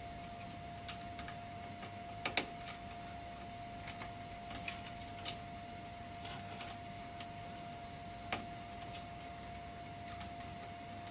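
Scattered small clicks and taps from plugging the case's front-panel audio connector leads onto a motherboard header, with two louder clicks about two seconds and eight seconds in.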